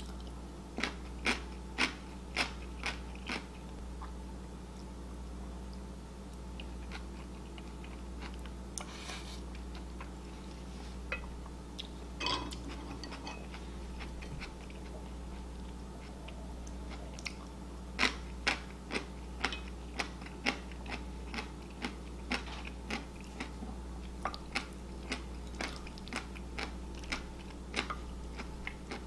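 Close-miked mouth sounds of crunching and chewing slices of yellow pickled radish with curry rice: clusters of sharp crunches in the first few seconds and again through the last third, with softer chewing between. A steady low electrical hum lies underneath.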